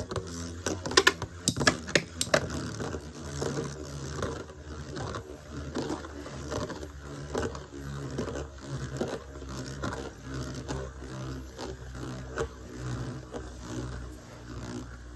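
Two metal Beyblade tops, MF-L Aquario 90MF and a Pegasus, spinning in a stadium. Several sharp clashes come in the first couple of seconds, then a steady, rhythmic whirring scrape as the tops spin out a stamina battle.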